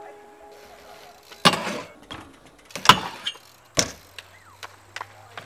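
Sharp clacks and knocks of a BMX bike on concrete: three loud ones about a second and a half, three and four seconds in, with a few lighter clicks between. The tail of background music fades out at the start.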